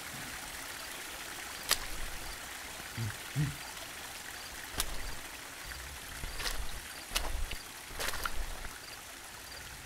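A stream runs steadily, with sharp knocks and scuffs of footsteps on loose rocks scattered through it. About three seconds in come two short, low grunts.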